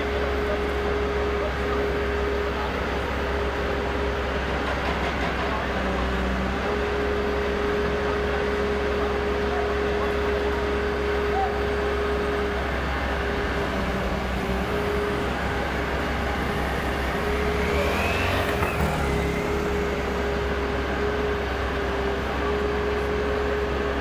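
Heavy diesel work vehicles idling at roadworks: a steady engine hum over a continuous low rumble. About three-quarters of the way through, something passes with a rising then falling whine.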